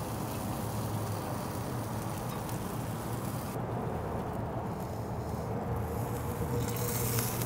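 Yoder YS640 pellet grill running hot, its fan giving a steady low hum, with a sizzling hiss from the sauce-glazed bacon strips on the grate over the firebox. The hiss drops off about three and a half seconds in and comes back stronger near the end.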